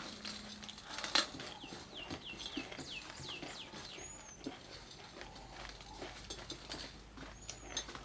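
A bird calling: a quick run of about eight falling whistled notes, then two short arched high whistles later on. Scattered soft clicks go with it, the sharpest one about a second in.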